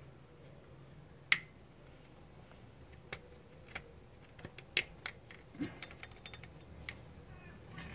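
Sharp plastic clicks and taps as fingers work the clip of a crankshaft position sensor's electrical connector to unplug it. There is one loud click about a second in, then a scattered run of smaller clicks.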